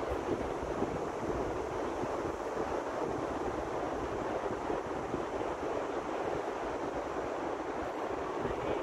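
Steady rushing of wind and surf, with gusts buffeting the microphone.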